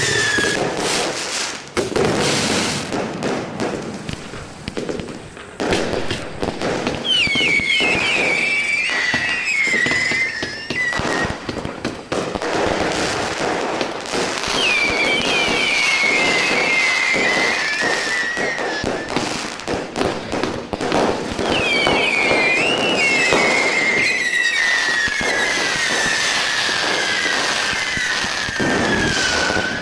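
Fireworks display: a dense run of bangs and crackles throughout. Three times, several high whistles sound together and slowly fall in pitch over a few seconds each, the last and longest near the end.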